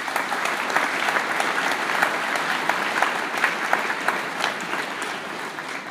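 Audience applauding in a large hall: many people clapping, swelling in at once and tapering off near the end.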